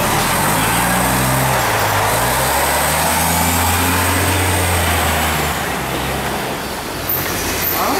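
A city bus's engine running close by, a deep hum whose pitch shifts in steps, fading away about six seconds in, over general street noise.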